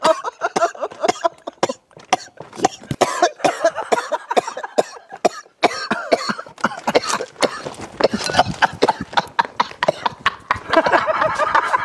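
Men coughing, spluttering and gasping in a rapid, ragged run after eating a heap of wasabi: the burning heat of the wasabi setting off the coughing fit.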